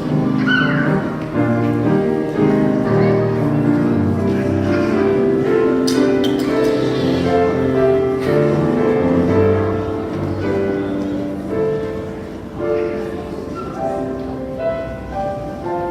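Instrumental music: a melody over held chords on a keyboard instrument.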